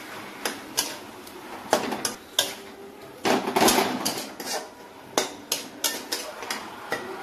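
Metal spatula knocking and scraping against a metal kadai while stirring leafy greens: irregular single clinks, with a denser run of scraping and clatter about three seconds in.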